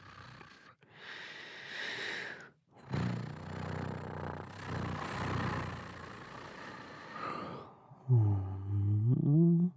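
A man's voice imitating cat sounds into a microphone: a breathy hiss, then a long rough growling sound, then near the end a loud drawn-out low voiced call that rises in pitch at its close.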